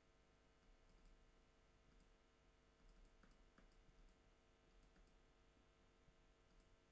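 Near silence with a few faint, irregular clicks of a computer mouse being used to browse software.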